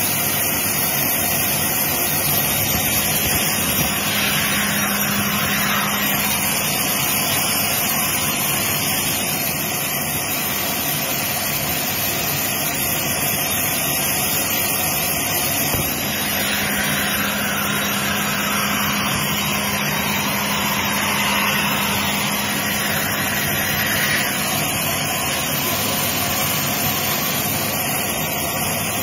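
Horizontal band sawmill running steadily, its band blade cutting lengthwise through a large log.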